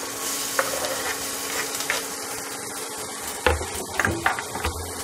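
Chopped garlic sizzling in hot sunflower oil in a stainless steel frying pan, a steady hiss, with a few sharp knocks of a utensil against the pan as it is stirred in, the loudest about three and a half seconds in.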